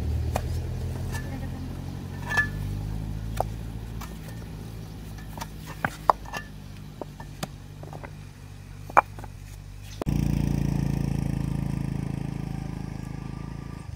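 Stones clicking and knocking against one another as they are set by hand into a mortared stone embankment wall, a dozen or so sharp knocks over a low steady hum. About ten seconds in, a louder low rumble starts abruptly and slowly fades.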